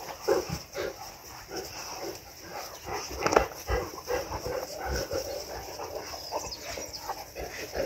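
Boerboel dogs making short vocal sounds as they play-wrestle, a string of brief grunts and yaps, loudest about three and a half seconds in.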